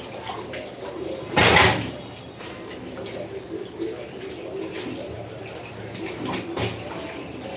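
Water being used at a kitchen sink: one loud splash about a second and a half in, then quieter running and trickling with a few faint clicks.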